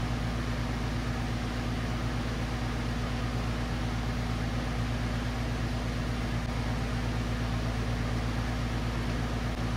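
Brazing torch flame hissing steadily as it heats copper for silver-solder brazing, over a steady low hum.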